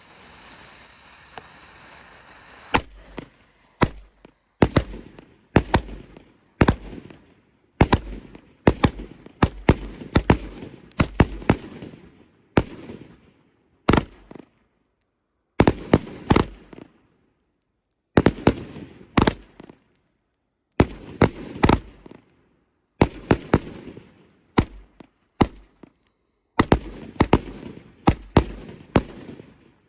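Firework salute cake firing 30 mm report shells: a steady hiss for about three seconds as the fuse burns, then a rapid string of sharp bangs, many in quick pairs and clusters, separated by short pauses.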